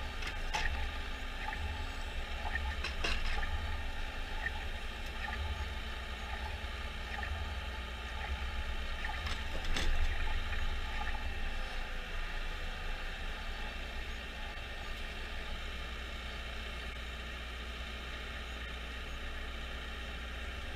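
Jarcrac Dual forwarder's diesel engine running steadily under hydraulic crane load as the Nisula/FTG P30 crane unloads pulpwood, with a few sharp knocks of logs and grapple, the loudest about ten seconds in.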